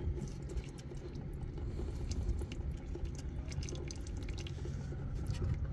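Engine oil dripping and trickling from a loosened, leaking oil filter into a drain pan, with faint small clicks of hands working the filter. A steady low hum runs underneath.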